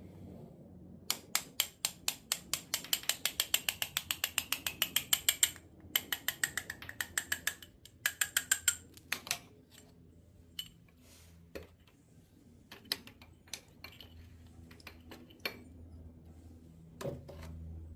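Ratchet wrench clicking in quick runs of about seven clicks a second, three runs in the first nine seconds, followed by scattered single clicks and light metal knocks.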